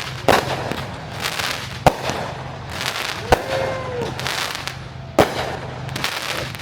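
A fireworks show: four sharp bangs of bursting shells, roughly one every one and a half seconds, over continuous crackling, with a low steady hum underneath.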